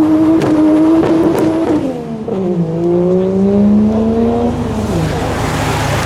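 Modified car accelerating hard away, its engine note climbing in one gear. About two seconds in the revs drop at a gear change, then climb again before fading into a noisy rush near the end. There are sharp crackles in the first second or so.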